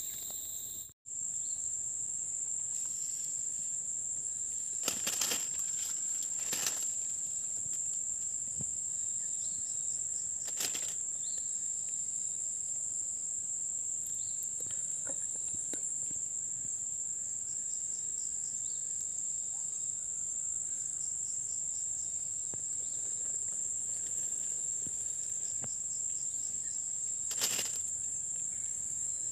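Insects trilling steadily in one high, unbroken tone, with a few brief knocks over it.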